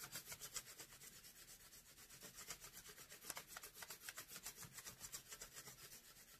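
Colored pencil rubbed quickly back and forth over paper laid on a leaf: a faint, rapid, even scratching of many short strokes a second.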